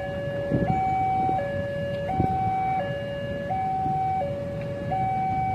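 Railway level-crossing warning alarm sounding a steady two-tone signal, a higher and a lower tone alternating about every 0.7 s. This is the warning that a train is approaching. A low rumbling noise runs underneath.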